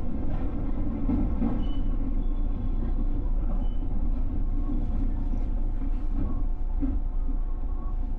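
JR West 221 series electric train heard from the cab: a steady low rumble with a few faint steady tones above it.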